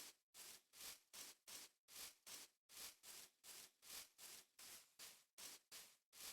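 Faint, even, rhythmic scraping strokes, about three a second, each a short rasp of noise with no tone to it.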